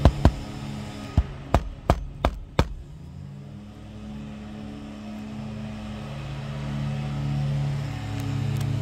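Claw hammer striking an asphalt-shingle roof: a quick run of about seven sharp blows, roughly three a second, over the first three seconds. A low, steady engine hum then swells through the rest.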